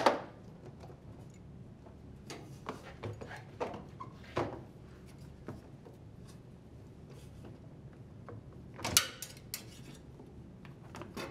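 Small metal clicks, scrapes and rattles of a hand tool working the wire retaining ring and its spring off an LG washer's rubber door boot seal. There is a sharp click right at the start and a louder cluster of clicks and rattles about nine seconds in, as the ring comes free.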